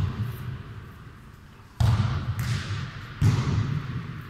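Football thudding as it is kicked and bounces on the hard gym floor during a futnet rally, with a long echo in the hall. Three hits: about two seconds in, a fainter one just after, and a louder one about three seconds in.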